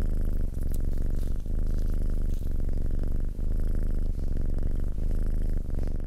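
Close-miked squishing and crackling of a soft baked chicken-and-cabbage meatball being squeezed and torn apart by hand. The sound is loud, low and grainy, with a couple of brief pauses, and stops about six seconds in.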